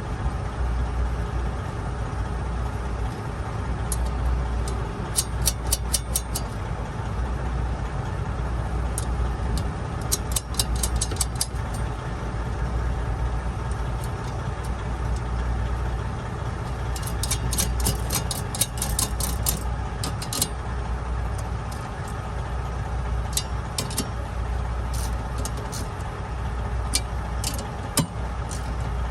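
A steady low engine drone, like a diesel truck idling, with several bursts of rapid clicking as dash parts are worked back into place.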